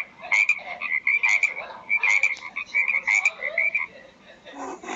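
Frog croaking: bursts of rapid, pulsing calls repeated one after another, stopping about four seconds in.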